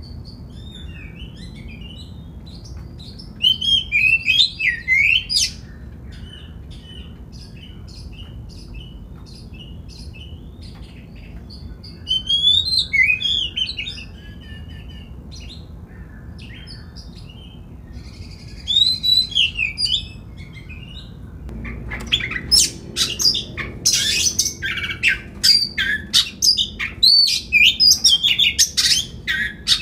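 Oriental magpie-robin singing: short bursts of varied whistles and chirps that rise and fall, then a louder, nearly unbroken run of song from about two-thirds of the way through.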